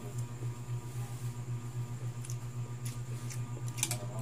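Eating sounds: a few soft clicks and mouth noises from a spoon and fork on a plate of noodles and from chewing, mostly in the second half, the loudest near the end. Under them runs a steady low hum with a fast regular pulse.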